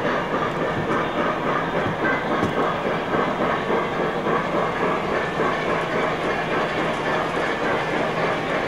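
O gauge model trains running steadily, their wheels rolling over the track.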